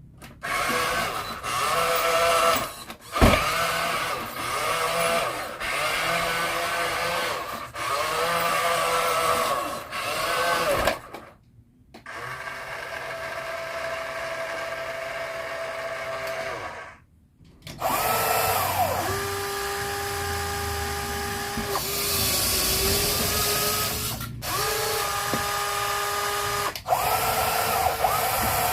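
Small electric motors and gearboxes of radio-controlled toy construction vehicles whining, the pitch rising as each starts and falling as it stops, in several runs with brief breaks between them.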